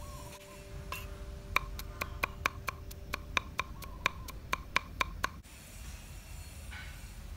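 Cleaver chopping onion and garlic on a round wooden cutting board: a run of sharp knocks at about four a second that stops abruptly after about four seconds.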